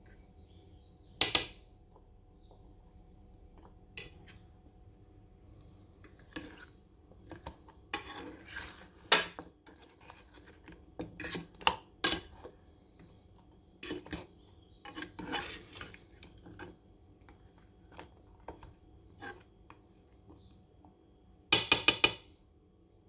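A metal fork clinking and scraping against a metal saucepan as cookie halves are turned in warm jam syrup. The sound comes in scattered clinks with quiet gaps, and a quick run of four or five taps near the end.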